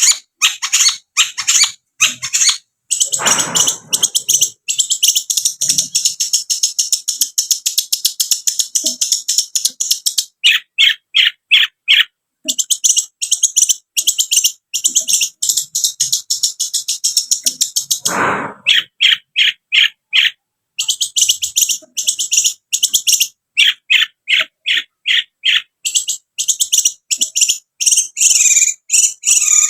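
Long-tailed shrike (cendet) singing hard: fast, almost unbroken strings of sharp, high chattering notes with short pauses between runs, and a harsher, lower rasping call about 3 seconds in and again near 18 seconds.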